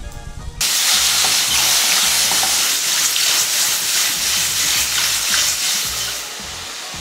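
Sliced mushrooms sautéing over high heat in a stainless steel frying pan, sizzling in hot oil. The sizzle starts abruptly about half a second in and drops to a quieter, steady sizzle near the end.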